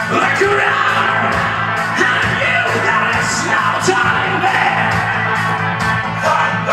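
Karaoke performance: a man sings over a backing track with a steady drum beat.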